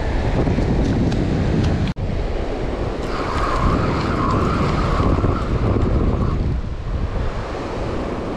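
Wind buffeting the microphone over surf breaking on the beach, with a brief dropout about two seconds in.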